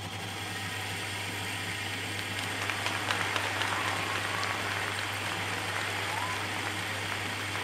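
Myford lathe turning a metal bar at 40 thousandths of an inch depth of cut: the cutting tool makes a rough hissing noise with scattered ticks, strongest in the middle, over the steady hum of the single-phase electric motor.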